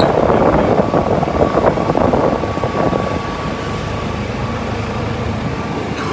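Golf cart driving along a street: steady motor and road noise with a faint steady whine, louder in the first few seconds.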